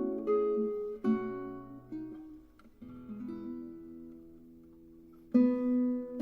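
Background music on a plucked string instrument, acoustic guitar or ukulele, playing slow picked notes and chords; it thins to a few sustained notes midway and comes back with a loud chord near the end.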